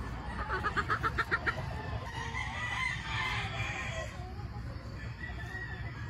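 Gamefowl chickens: a quick run of about ten clucks in the first second and a half, then a rooster crowing in the background.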